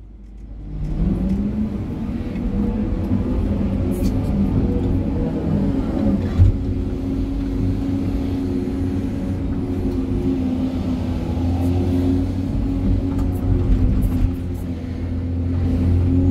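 SANY excavator's diesel engine and hydraulics working under load, heard from inside the cab: the engine note rises about a second in and then holds a steady hum with a whine over it as the arm and bucket swing and dig. One sharp knock about six and a half seconds in.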